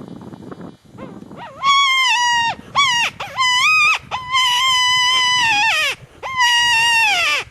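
Predator call sounding a distress squeal to lure a coyote: five long, high wailing cries. Each rises at its start, holds a steady pitch and drops away at its end.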